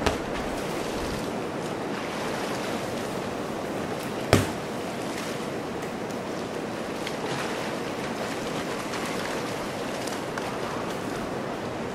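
A steady rushing noise with no monkey calls, broken by one sharp knock about four seconds in.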